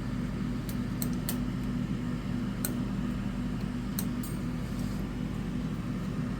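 Steady low machine hum, with a few sharp clicks scattered through it.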